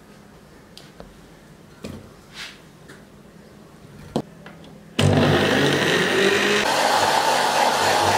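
A few soft knocks as strawberries are dropped into an empty blender jar, then about five seconds in an electric countertop blender's motor starts suddenly and runs steadily, pureeing the strawberries, its tone shifting a little a second or so later.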